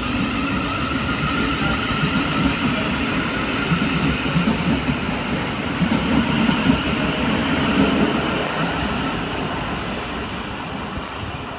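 Electric multiple-unit trains at the platform: a steady whine of electric traction equipment in several held tones over a low rumble of wheels on track. The rumble swells to its loudest about six to eight seconds in.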